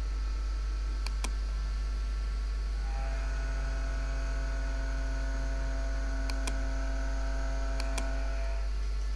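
Steady low electrical mains hum, with computer mouse clicks in three quick pairs as lines are drawn in CAD software. A faint steady pitched whine comes in about three seconds in and stops shortly before the end.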